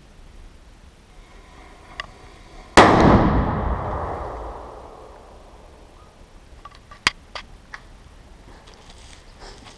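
A large firecracker exploding inside a brick bunker: one sudden, very loud bang about three seconds in, echoing and dying away over about two seconds. A few light clicks and cracks follow a few seconds later.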